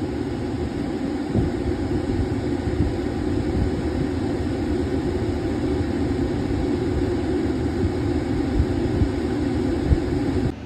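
Steady low rumble of a parked car's idling engine and ventilation heard from inside the cabin, with a few soft knocks.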